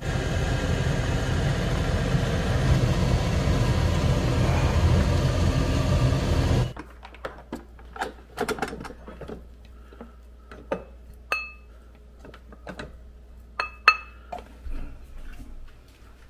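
Steady mechanical kitchen hum over a wok of kimchi-jjim simmering on an induction hob, cutting off abruptly after about six and a half seconds. After that come scattered light clinks and taps of a rice paddle working in a rice cooker's inner pot, with a few short metallic pings.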